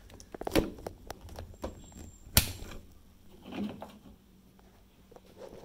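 Handling noises: a knock just over half a second in and one sharp click about two and a half seconds in, with faint rustling between.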